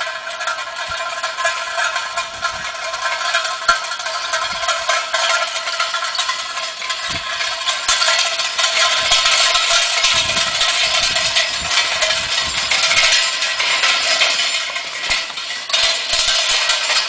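Steady metallic rattling and ringing from a horse-drawn farm implement and its harness, with scattered low knocks; it grows louder about halfway through.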